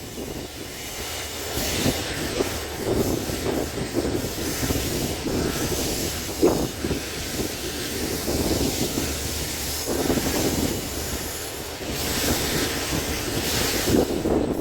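Passenger train running along the track: a continuous rumble and rattle of wheels on rails that swells and eases at times.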